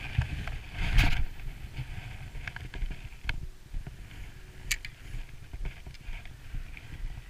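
Cast with a spinning rod and a 10 g jig: a rush of rod and line about a second in, then a few sharp clicks from the Daiwa Laguna spinning reel as the bail is closed and the lure retrieved, over a steady low rumble.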